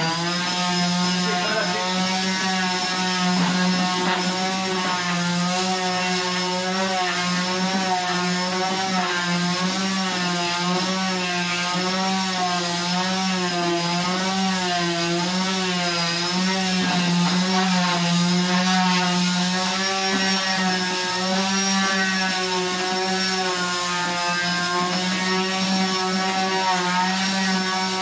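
Electric orbital sander running steadily while it is worked across a flat sign panel, its motor whine wavering slightly in pitch throughout.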